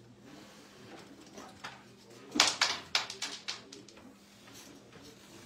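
Wooden carrom men clacking against each other and the board as they are gathered and set in the centre formation for a new board. A quick run of sharp clacks comes about two seconds in, the first the loudest.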